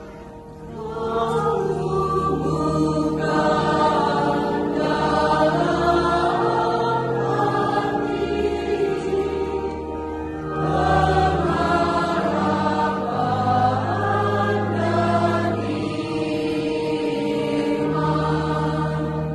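Children's school choir singing a hymn together, with a short breath between phrases at the start and again about ten seconds in.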